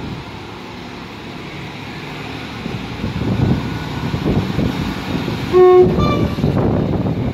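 Class 158 diesel multiple unit running into the platform, its rumble growing louder, then sounding a short two-tone horn about five and a half seconds in: a lower note followed by a higher one.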